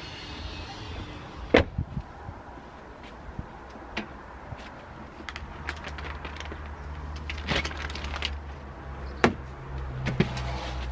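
Knocks, bumps and rustles of camping gear being handled and loaded into a car boot, including a plastic-wrapped pillow. The loudest is a sharp knock about one and a half seconds in, and a flurry of rustling comes a little after the middle, over a low steady rumble.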